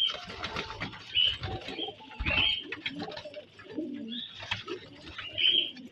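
Domestic pigeons cooing in a loft, with several short high-pitched calls spaced a second or so apart and a few light clicks and rustles.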